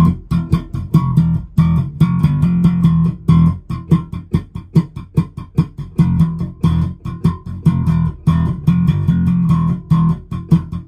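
Spector NS-2 electric bass with two J-style pickups, played fingerstyle through an amp: a fast riff of short, punchy notes, about four or five a second.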